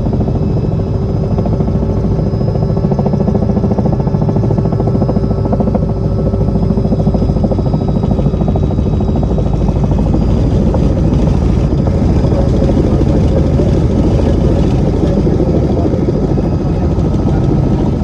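Helicopter's rotor and engine running steadily and loudly: a dense, rapid beat under a few steady tones.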